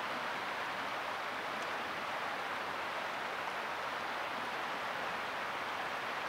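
Steady rush of a swollen creek flowing, an even hiss without breaks.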